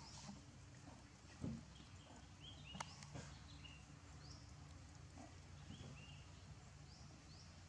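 Faint outdoor ambience with a low steady hum and short, high chirps every second or so. Two soft knocks stand out, about one and a half and three seconds in.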